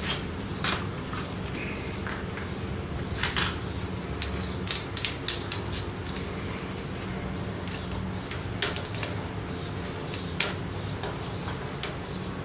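Light metallic clicks and clinks of a socket and ratchet being handled and fitted together, about a dozen sharp separate clicks, over a steady low hum.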